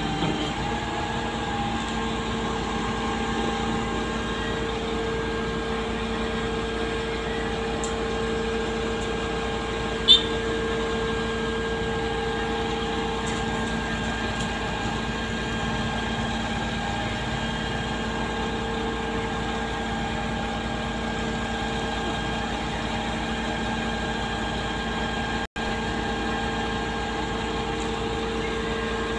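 Truck-mounted concrete boom pump running steadily during a concrete pour, a constant engine and pump drone with a few steady tones. One sharp click about ten seconds in.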